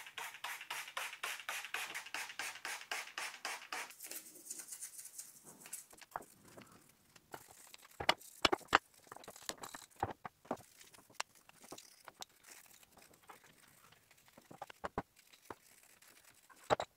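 Toothbrush scrubbing metal camshaft parts wet with diesel: a quick, even run of scratchy strokes, about six a second, for the first few seconds. Then fainter intermittent brushing with scattered sharp clicks and knocks of metal parts being handled.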